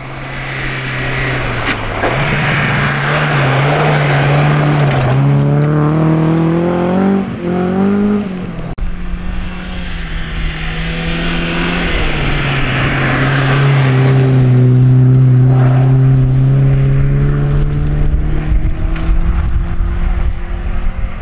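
Saab 99 EMS rally car's 2.0-litre four-cylinder engine revving hard on a snow stage, its pitch climbing in steps through the gears, with the tyres hissing through snow and gravel. The sound breaks off suddenly about nine seconds in and picks up on a second pass, the engine held at high revs for a long stretch.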